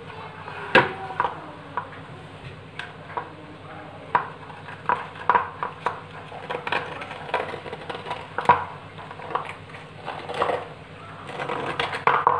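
Aluminium idli mould plate being handled on a countertop, with scattered metallic clinks and knocks, two louder ones about a second in and past the middle. Near the end a metal spoon scrapes against the mould as a steamed idli is prised out.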